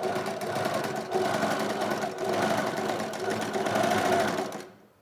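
A fast buzzing electronic sound, a rapid stream of pulses over a steady pitched hum, fading out about four and a half seconds in.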